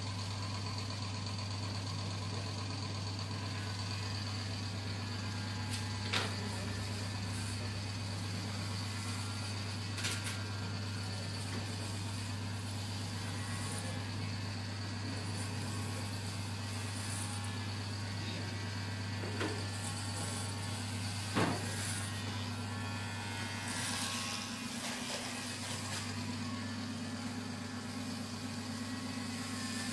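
Electric hair clippers running with a steady low buzz, broken by a few sharp clicks.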